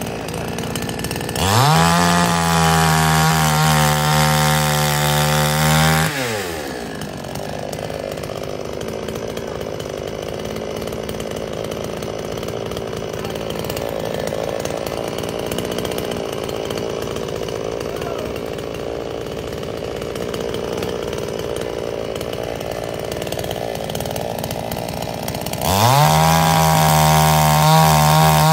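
Two-stroke gas chainsaw revved to full speed twice as it cuts into logs: for about five seconds starting a second and a half in, then again near the end, with a long steady idle between.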